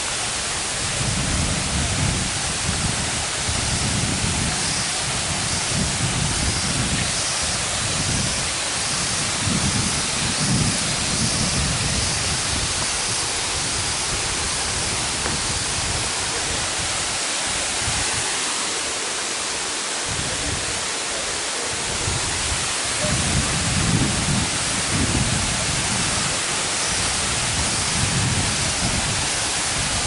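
Steady rushing of a waterfall cascading over rock, with irregular low rumbles on the microphone.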